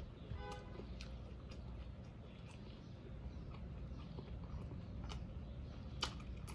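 Close-miked chewing of a fried whiting sandwich: soft wet mouth clicks and smacks at irregular moments, over a low steady background hum.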